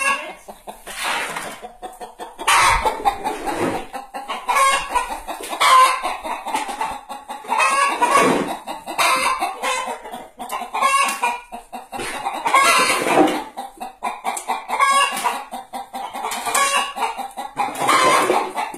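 Domestic hen cackling: a long run of loud, repeated clucking calls, about one a second.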